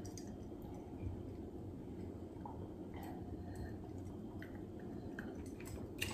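Faint gulping and swallowing as a man drinks water from a glass mug, with a few small wet clicks over a low room hum.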